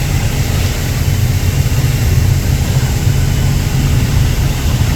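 Boat engine running steadily with a deep low rumble, under a hiss of wind and water.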